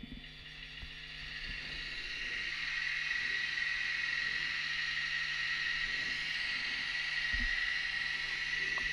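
Sound decoder of an N gauge model DB class 181 electric locomotive playing its running sound through the model's small speaker: a steady electric buzzing and hissing with a thin high whine. It swells over the first few seconds and then holds steady.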